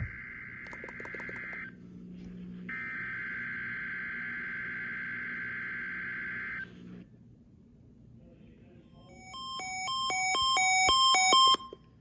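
NOAA Weather Radio SAME header data bursts heard through a weather alert radio's speaker: two harsh buzzing bursts, the first ending under two seconds in and the second running about four seconds. Near the end, the radio's own alert sounds as a fast pattern of electronic beeps that grows louder for about two seconds and then cuts off. This is the alert set off by a Required Weekly Test code.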